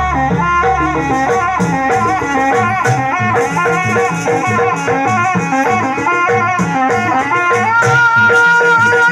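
Traditional Javanese barong dance accompaniment: a loud reed wind instrument plays a wavering, ornamented melody over drums and percussion, with jingling rattles. About eight seconds in the melody moves up to long held high notes.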